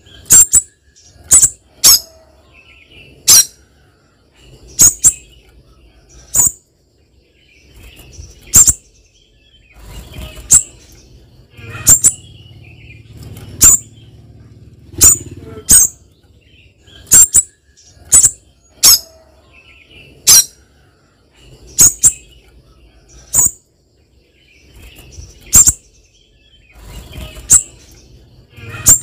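Spiderhunter calling: short, sharp, high-pitched call notes repeated irregularly about once every one to two seconds, some in quick pairs, with a faint low rumble between them.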